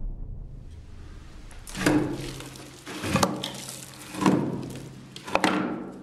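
Dark, brooding soundtrack music at a sparse moment: four heavy resounding hits about a second apart, each ringing out over a low held tone.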